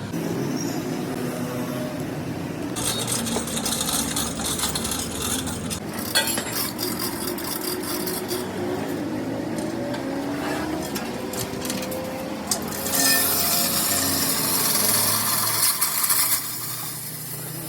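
Workshop tool noise: two long stretches of harsh rasping or scraping, the second a little louder, over a steady low hum.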